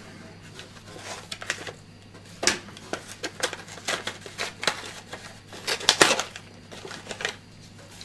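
Packaging of an ESD wrist strap being handled and opened: irregular crinkling and small clicks, with the sharpest clicks about two and a half seconds in and again about six seconds in.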